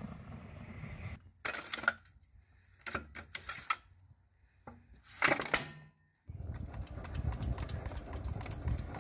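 The rumbling tail of a 152 mm howitzer shot dies away. Then come sharp metallic clicks and clanks as the crew loads a 2A65 Msta-B howitzer, ramming the shell and handling the breech. A loud clank comes about five seconds in, and a steady rushing noise follows.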